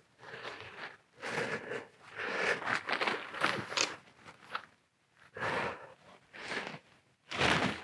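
Nylon tent fabric rustling and crinkling in irregular bursts as the tent and its pole are handled, with footsteps on grass. The loudest burst comes near the end.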